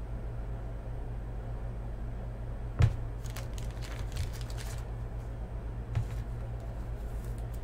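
A low steady hum, with small clicks and rustles of a trading card being handled and turned in the fingers. The sharpest click comes about three seconds in, a few fainter ones follow, and another tick comes near six seconds.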